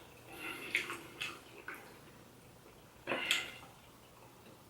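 Wet mouth sounds of eating Dungeness crab: a few short smacks and sucking clicks, with a louder one about three seconds in.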